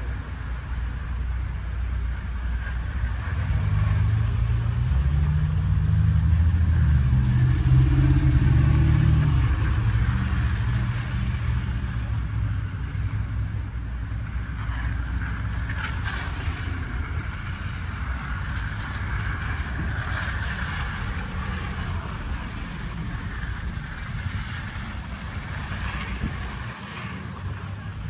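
City street traffic: a motor vehicle passes close by, its low engine and tyre rumble swelling to the loudest point a little under halfway through and then fading back into the steady rumble of road traffic.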